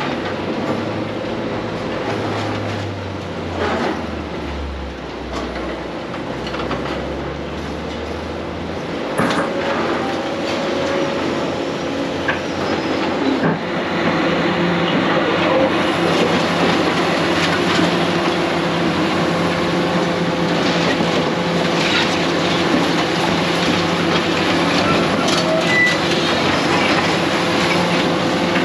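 Heavy demolition machinery: a diesel engine running steadily under load, with scattered metal clanks, scraping and squeals. Partway through, the engine note steps up in pitch and grows louder.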